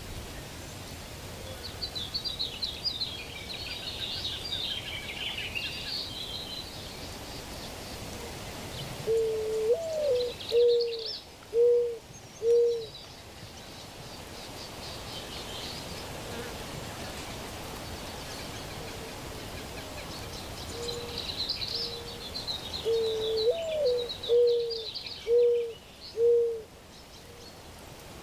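A bird gives a low hooting phrase twice: a longer note that rises then falls, then about four short hoots roughly a second apart. Small birds chirp and twitter at a much higher pitch throughout.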